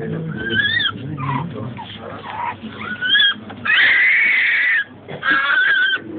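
Newborn baby boy crying at his circumcision in several bouts of wailing, with one long held cry about four seconds in.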